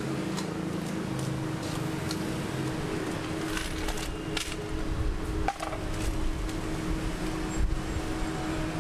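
Street background of passing traffic with a steady low hum, and a few light knocks and clicks of things being handled on a stall counter. The sharpest knocks come about five and a half and seven and a half seconds in.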